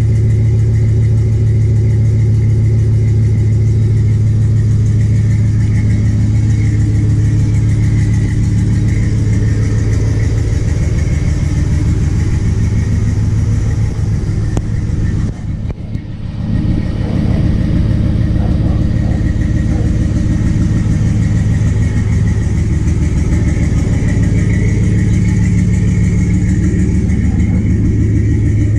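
LS-swapped V8 in an OBS Chevrolet pickup idling steadily through a temporary muffler: still not quiet by any means, but a lot more tolerable. The sound drops briefly about halfway through.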